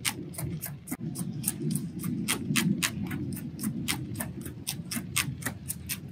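Trigger spray bottle being squeezed rapidly over and over, a quick spritz of water about four times a second, rinsing the headlight.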